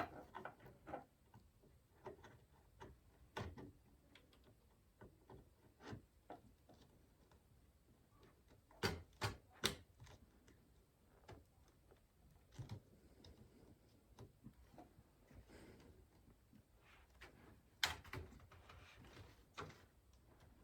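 Handling noises of a PC build: scattered small clicks, taps and knocks of parts and cables against a PC case, with a quick run of three sharp clicks about nine seconds in and another sharp click about eighteen seconds in.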